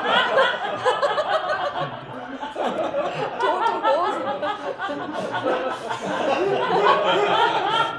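Several people laughing together at a joke, the laughter continuous and overlapping. It ebbs a little about two seconds in and swells again near the end.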